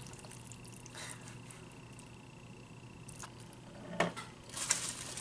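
Quiet eating sounds: a plastic fork picking through pasta in a plastic takeout bowl with faint clicks, then a short mouth sound about four seconds in and rustling near the end.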